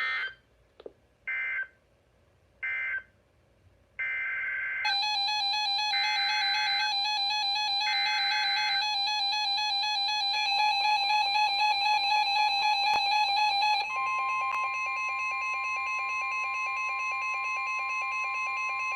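NOAA Weather Radio Emergency Alert System signalling: three short bursts of screeching digital data tones as the previous warning ends, then three longer bursts of SAME header data announcing the next warning. Then comes the steady 1050 Hz weather-radio warning alarm tone, which starts about two-thirds of the way through. A buzzing chord of steady tones runs underneath from the header bursts onward.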